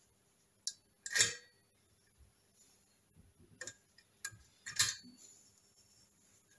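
Valve spring compressor on a motorcycle cylinder head being wound off, giving a few sharp metallic clicks spaced roughly a second apart, the loudest about a second in, as the valve spring is let up onto the collets.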